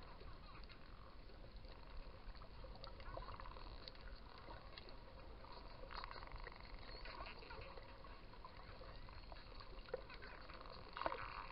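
Spinner dolphins heard underwater: scattered clicks and short buzzing click trains over the steady hiss of the sea, with the strongest buzz near the end.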